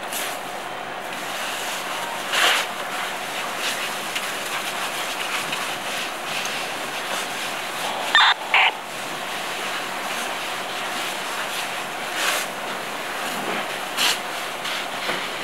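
Fire hose stream spraying water onto a burning pickup truck, a steady rushing hiss. A few short sharp bursts cut through it, the loudest two close together about eight seconds in.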